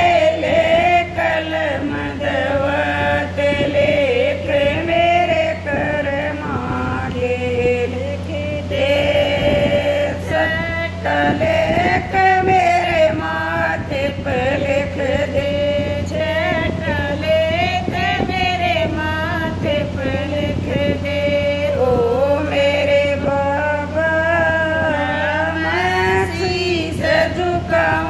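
A woman singing a Hindi devotional bhajan, her voice sliding and wavering between long held notes with hardly a pause.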